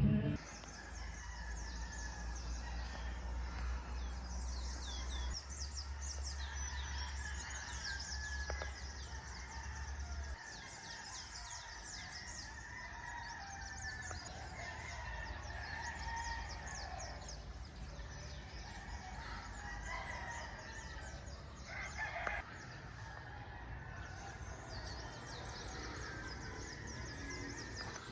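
Outdoor morning ambience of birds chirping rapidly, with a rooster crowing and a louder call a little after twenty seconds. A low steady hum underneath stops about ten seconds in.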